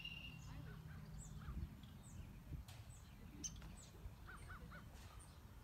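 Scattered short bird calls, with three quick calls in a row about four and a half seconds in, over a low rumble.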